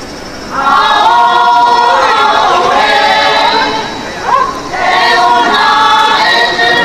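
A group of women singing a Lotha Naga folk song together, unaccompanied, in long held phrases that start about half a second in and break briefly about four seconds in before going on.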